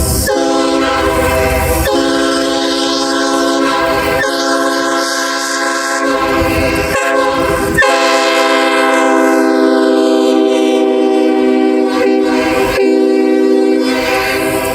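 Nathan Airchime K5HLA five-chime train horn (early two-piece-bell version) blowing one long, steady chord.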